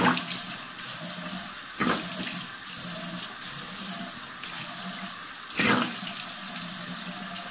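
Bathroom sink tap running steadily as water is splashed onto the face to rinse off face wash, with three louder splashes.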